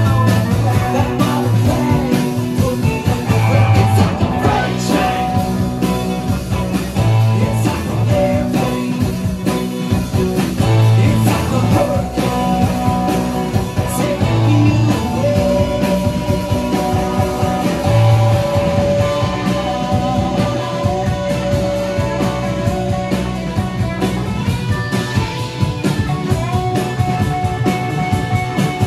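Live band playing a rock song with acoustic and electric guitars, drum kit and upright bass, with singing.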